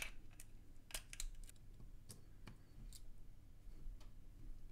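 Faint, scattered small clicks and ticks of a precision screwdriver turning a tiny Torx screw in a vape mod's top plate.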